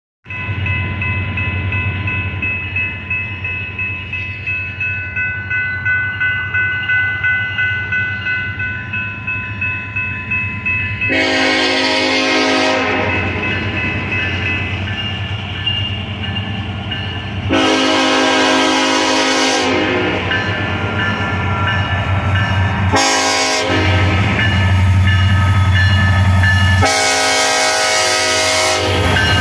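Approaching freight train's lead locomotive, an EMD SD70ACe with a five-chime K5LLA air horn, sounding the grade-crossing signal: two long blasts, a short one, then a long one. Before the first blast, crossing warning bells ring in a steady pulse. Throughout, the diesel rumble grows louder as the locomotives near.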